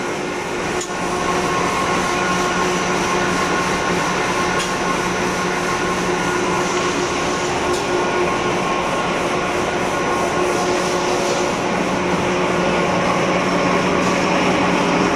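Automatic paper napkin making machine running: a steady mechanical din with several constant humming tones from its motors and rollers as the paper web feeds through.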